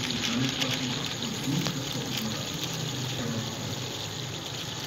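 Beef mince simmering and sizzling in an aluminium pot as the last of its cooking water boils off: a steady hiss with small crackles throughout.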